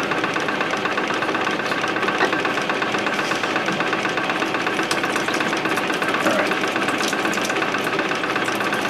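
Peristaltic pump running steadily, pushing water through the filter's tubing, with the return line pouring into a bucket of water.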